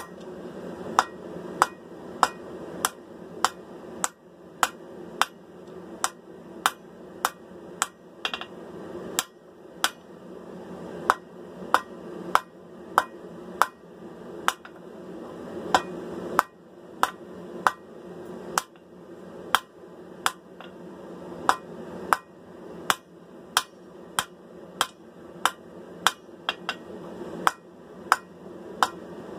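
Hand hammer striking hot steel on an anvil at about two blows a second, with a few short pauses, as the tip of a sword blank is drawn out to a point. A steady low rush runs underneath.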